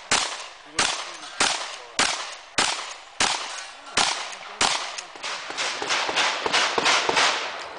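Pump-action shotgun, a Mossberg 590, firing a string of shots in a match stage. The shots come about every 0.6 s through the first five seconds, then faster and overlapping with their echoes near the end.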